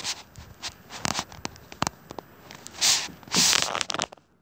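Rustling and knocking handling noise as a cat's fur brushes against the phone, with scattered clicks and two short loud bursts of rustling about three seconds in.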